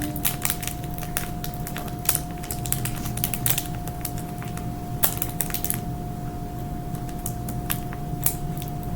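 Slime being stirred and squished, with irregular sticky clicks and crackles, over a steady hum.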